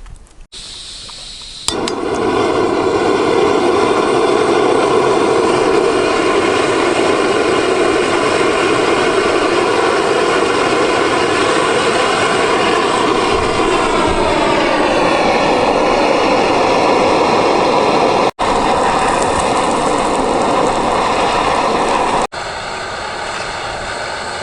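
Portable gas camp grill burner lit and running with a loud, steady roar that starts suddenly about two seconds in. Its pitch drops about fourteen seconds in, as the flame is turned down, and it is quieter near the end.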